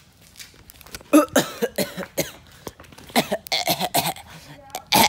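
A boy coughing hard again and again, right up against the phone's microphone, in a run of loud irregular coughs that starts about a second in.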